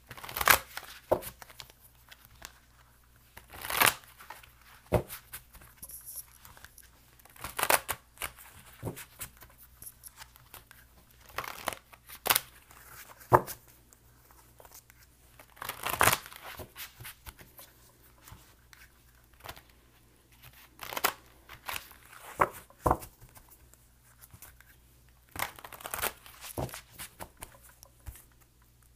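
A deck of tarot cards shuffled by hand: short bursts of card noise every few seconds, with quiet between.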